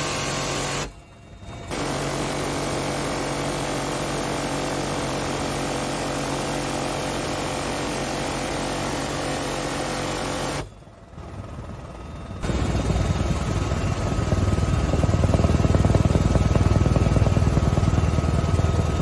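Door-mounted 7.62 mm minigun on a UH-1Y Venom helicopter firing long continuous bursts over the helicopter's engine and rotor noise. The sound breaks off briefly twice, about a second in and about eleven seconds in. The last stretch is the helicopter's rotor and engine noise alone, louder and deeper.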